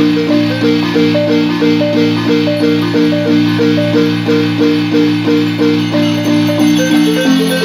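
Marimba playing a lively, repeating melody of quick mallet notes, about three a second, over held, rolled lower notes.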